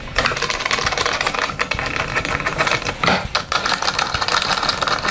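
A hand screwdriver turning a bolt into the black ball-screw end bearing block, with rapid, continuous clicking.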